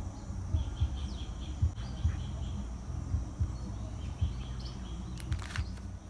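Outdoor morning ambience: birds chirping faintly in short calls over a steady low rumble with irregular soft thumps, and a brief rustle shortly before the end.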